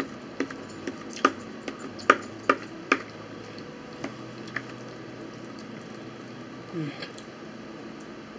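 A metal fork clicking and scraping against a plate while twirling spaghetti: a quick run of sharp clicks in the first three seconds, then a few fainter ones.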